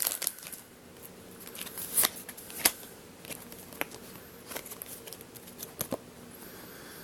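Handling of a Pokémon booster pack and its trading cards: scattered soft clicks and rustles as the cards are slid and sorted, loudest about two seconds in.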